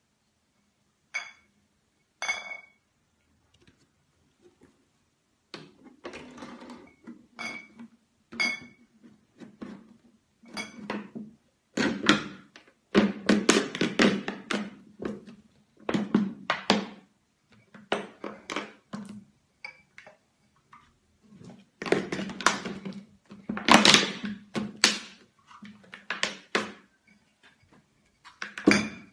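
Glass beer bottles clinking against each other as they are pushed together on a table, a few separate ringing chinks in the first nine seconds. From about ten seconds in, a large thin plastic water jug is handled over the bottles, giving a long run of irregular knocks and scrapes, loudest around twelve to fifteen and twenty-two to twenty-five seconds in.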